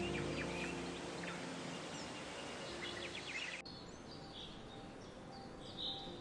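Birds chirping over a soft outdoor ambience, with faint held music tones underneath. About two-thirds of the way through, the sound cuts abruptly to a quieter ambience with a few short bird calls.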